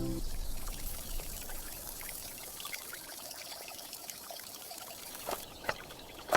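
Water pouring and trickling with many small drips, stopping about five seconds in, followed by a few sharp clicks.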